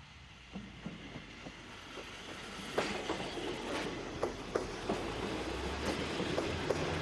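Kominato Railway KiHa 200 series diesel railcars coming closer, wheels clicking over rail joints, the clicks growing louder and more frequent, with the diesel engine's low drone coming in near the end.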